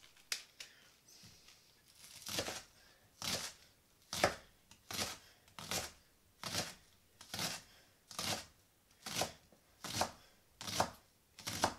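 Chef's knife chopping spring onions on a plastic cutting board: a steady run of knocks, a little more than one a second, starting about two seconds in, about a dozen in all.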